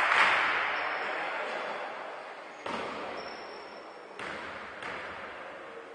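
Basketball bounced on a hardwood gym floor three times, each bounce echoing through the hall, as the shooter sets up a free throw. The hall noise fades over the first couple of seconds, and two short high-pitched squeaks come through.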